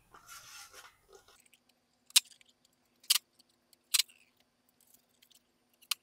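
Adhesive tubeless rim tape peeling off its roll with a short, quiet rasp as it is laid into a bicycle rim, followed by four sharp clicks spaced about a second apart.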